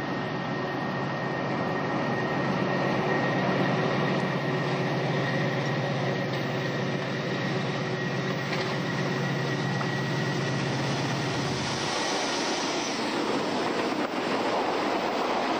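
Class 56 diesel locomotive's Ruston-Paxman 16-cylinder engine running steadily as it approaches and passes close by. About twelve seconds in the engine note drops away, leaving the wheel and track noise of empty limestone hopper wagons rolling past.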